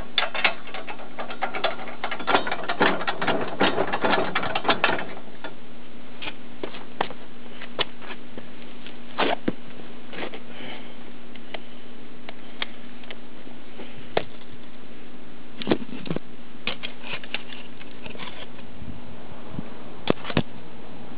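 Ratchet wrench clicking rapidly for about five seconds while bolts on a steel hitch bracket are tightened, followed by scattered single metallic clicks and knocks.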